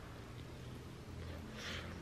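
Quiet room tone with a faint steady low hum, and a brief soft hiss-like noise near the end.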